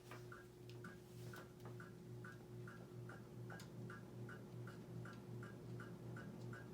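1999 Casablanca Ventura ceiling fan's XLP 2000 motor running on high with a steady faint hum and a light scrape repeating a little more than twice a second. The scrape comes from either something in the motor or the bearings, the owner isn't sure which, and it is quite pronounced at this speed.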